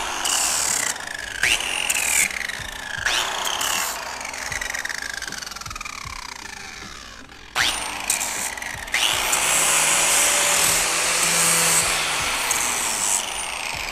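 Angle grinder with a flap disc sanding wood in several short runs. Each time the trigger is let go the motor coasts down in a long falling whine. A longer steady run comes about two-thirds of the way in and also winds down near the end.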